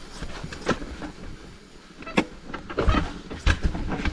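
Mountain bike riding a rough trail: tyre noise on dirt with sharp knocks and rattles from the bike over bumps, coming thicker and louder in the second half.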